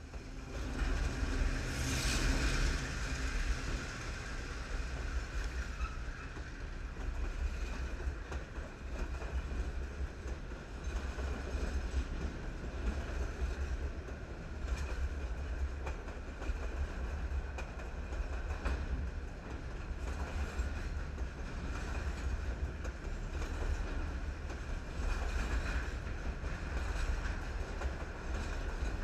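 A diesel freight locomotive passes right beside the track, loudest about two seconds in. A long train of container flatcars follows, rolling by with a steady heavy rumble of wheels on rail, scattered clicks from wheels crossing rail joints, and a faint high ring.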